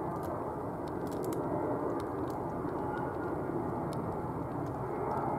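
Airbus A319-112 airliner climbing away after takeoff, its twin CFM56 turbofan engines heard from the ground as a steady, distant jet rumble that swells slightly toward the end.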